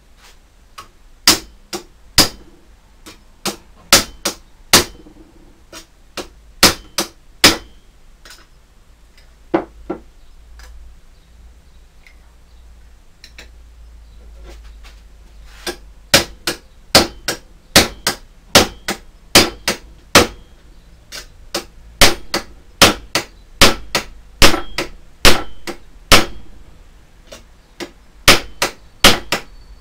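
Hammer blows on a steel tool held against sheet steel clamped in a bench vise: sharp metallic strikes, about a dozen in the first third, a pause of a few seconds, then a faster, steadier run of strikes to the end.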